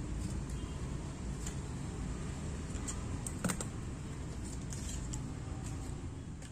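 Scissors snipping through a thin white sheet as a circle is cut out: a few short, light clicks, the sharpest about halfway through, over a steady low rumble.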